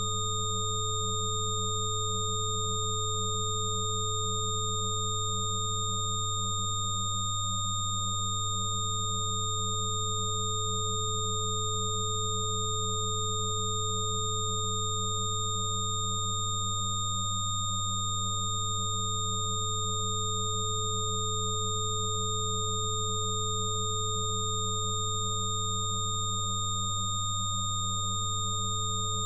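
Steady synthesized sine-wave tones layered together: a strong low hum-like tone with several higher pure whistling tones above it, as in a 'healing frequency' sound-therapy track. One middle tone briefly fades out and back three times, about ten seconds apart.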